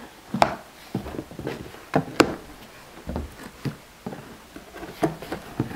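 A cardboard shipping box being cut open with a small knife and its flaps pulled apart: irregular sharp taps, knocks and scratchy cardboard noises.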